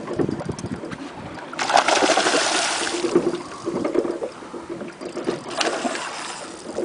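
Water splashing and sloshing at the side of a fishing boat, with a louder rushing splash lasting about a second and a half from just under two seconds in.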